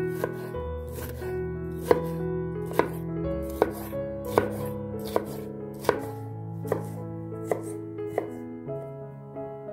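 Knife chopping on a cutting board, a sharp knock about every 0.8 s, over background music with sustained chords.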